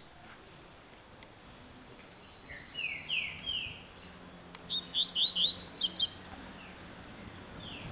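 Caged double-collared seedeater (coleiro) singing: three slurred whistled notes, then after a short pause a quick run of sharp, high notes.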